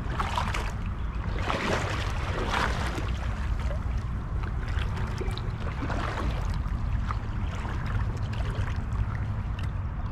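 Legs wading through a shallow creek, water sloshing and swishing around them with each stride, the swishes strongest in the first few seconds and then lighter splashes, over a steady low rumble.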